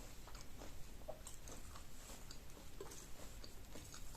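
Faint chewing of fried paprika rings: scattered small crunches and clicks.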